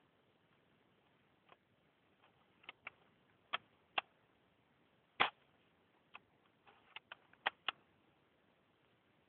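Airsoft L96 bolt-action spring rifle: a string of sharp mechanical clicks and snaps, unevenly spaced, in two clusters with the loudest snap about five seconds in.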